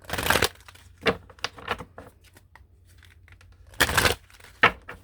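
A deck of oracle cards being shuffled and handled: several short rustling, flapping bursts, the loudest just after the start and again about four seconds in.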